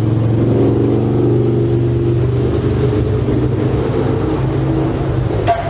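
A steady motor drone, with a short click near the end.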